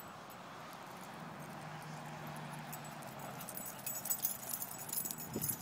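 Dogs running close by on sand: a quick patter of paws and jingling collar tags that starts about four seconds in, over a low steady outdoor background.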